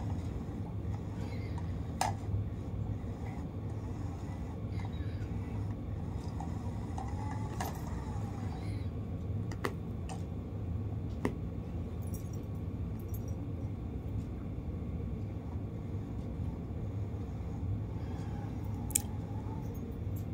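Translucent plastic pet cone collar rustling and scraping on a rug as a cat pushes into it, with a few sharp light clicks over a steady low room hum.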